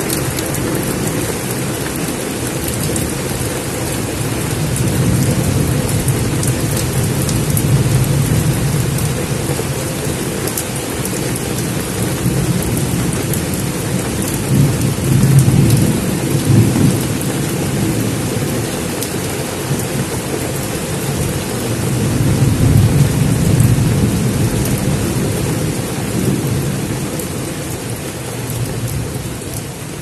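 Heavy rain pouring onto dense tropical foliage, a steady hiss. Low rolling rumbles of thunder swell and fade three times, the loudest about fifteen seconds in.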